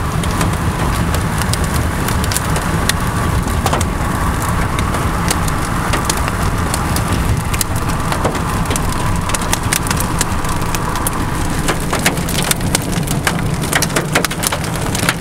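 Raindrops ticking and tapping against the car and camera, growing thicker near the end, over a steady low rumble.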